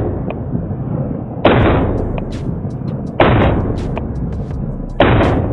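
Glock pistol firing slow single shots, three in all, about a second and three-quarters apart, each with a long fading tail, over electronic background music.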